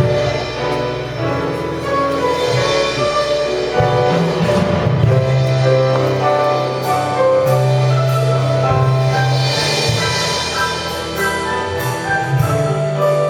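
Instrumental music from a stage musical's accompaniment, with held melodic notes over a sustained low bass line and repeated sharp percussion hits.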